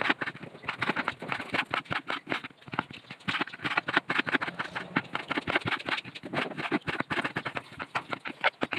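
Chef's knife chopping tomatoes on a wooden cutting board: quick, irregular knocks of the blade striking the board, several a second.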